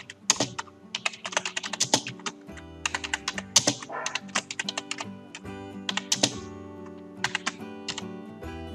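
Computer keyboard typing: runs of quick keystrokes with short pauses between words, over background music with held tones.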